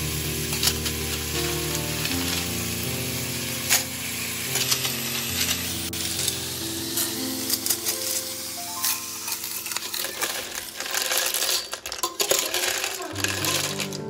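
Snails in their shells sizzling as they fry in mustard oil in a steel pot, their shells clicking and scraping against the pot as they are stirred with a slotted spoon; the clicking gets busier near the end. Soft background music with held notes runs underneath for most of it.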